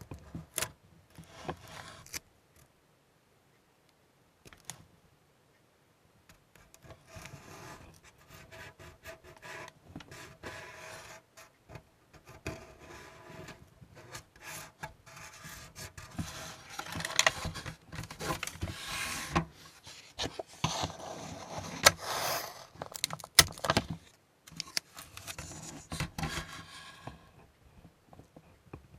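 Irregular rubbing and scraping of hands and tools working on a plastic model, with a few sharp clicks near the end.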